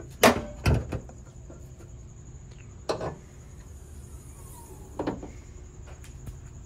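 A few sharp clunks and knocks, the loudest about a quarter second in, more near three seconds and one about five seconds in: the hood of a 2022 Subaru WRX being unlatched and lifted open. A faint, steady high-pitched whine runs underneath.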